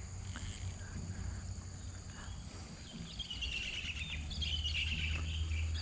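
Outdoor ambience of insects droning steadily at a high pitch, joined about three seconds in by a louder, rapid chirring call, over a low rumble.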